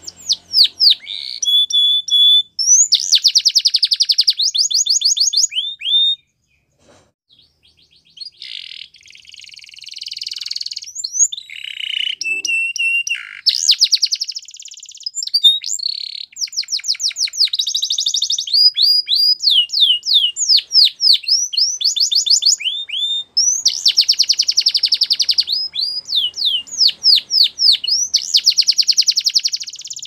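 Male domestic canary singing: a long song of rapid trills and quick sweeping notes. There is a pause of about two seconds some six seconds in, and then the song resumes.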